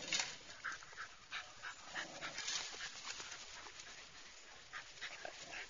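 Puppies whimpering in a run of short, high squeaks, most of them in the first two or three seconds, over a steady hiss.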